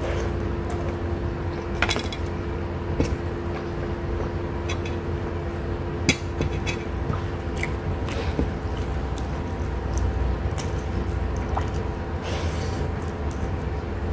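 Close-up eating sounds: fingers squishing and gathering soft rice on a plate, with scattered small clicks and wet squishes over a steady low hum.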